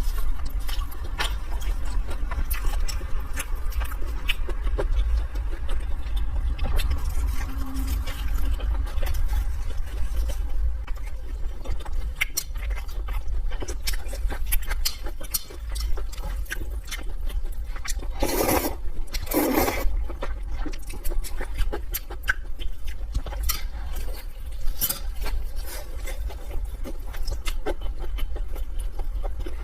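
Close-miked mukbang eating sounds: chewing with many small wet clicks over a steady low rumble, and two short loud bursts a second apart about two-thirds of the way through.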